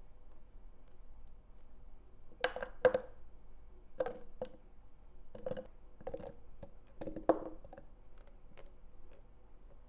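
Light knocks and clinks of kitchen items being handled: about a dozen irregular strikes, some with a short ringing tail, over a steady low hum.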